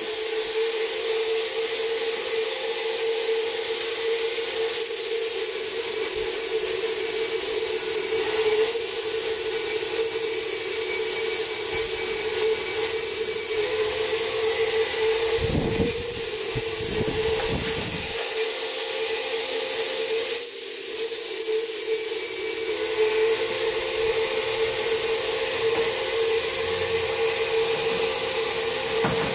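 Air-fed paint spray gun hissing steadily as it sprays a car's door panels, over a constant steady hum, with a few brief low rumbles around the middle.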